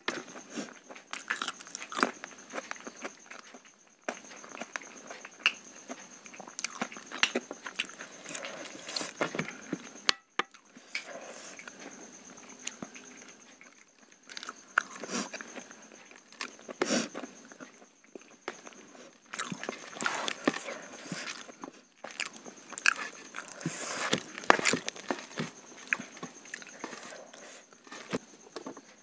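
Close-up eating sounds from a meal eaten by hand: fingers squishing and mixing rice on a steel plate, and wet chewing and biting in irregular clusters of small clicks.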